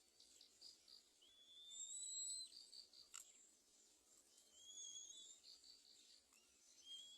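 Faint outdoor wildlife sounds: rapid, evenly pulsed insect chirping with several high, wavering whistled calls lasting about a second each, and a single sharp click about three seconds in.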